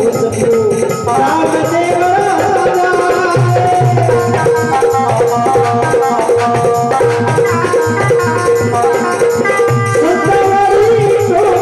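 Instrumental accompaniment of a Rajasthani nirguni bhajan. A held-note melody line plays over tabla-style hand-drum strokes, with a steady fast pulse of light percussion.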